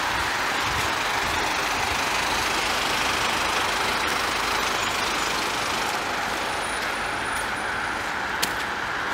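Steady rush of road traffic, tyre and engine noise from a busy road, easing off slightly near the end.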